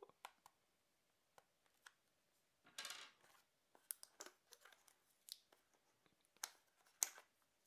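Faint clicks and scrapes of a coin turning the plastic battery compartment cover on the underside of a Braun BC21 alarm clock, with a short scraping rustle about three seconds in and a sharper click near the end.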